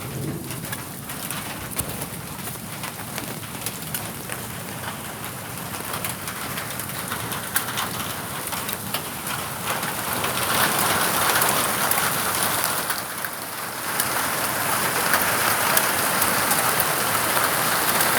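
Heavy rain from a supercell thunderstorm pouring down, a steady hiss with many sharp ticks of drops striking. It grows heavier and louder about ten seconds in, eases briefly, then picks up again.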